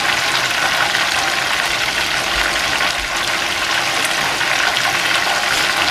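Chicken deep-frying in hot oil: a steady sizzle with faint small crackles.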